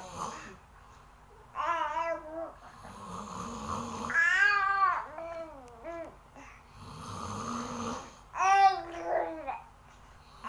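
A man snoring in two long, slow breaths, while a small child babbles and whines in short high-pitched outbursts between the snores.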